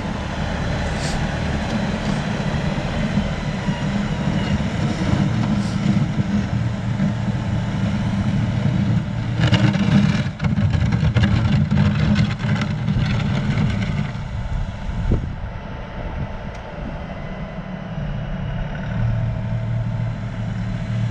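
Diesel engine of a 42-horsepower LS compact loader tractor running steadily as it moves through snow. It drops a little in loudness in the second half as the tractor pulls away.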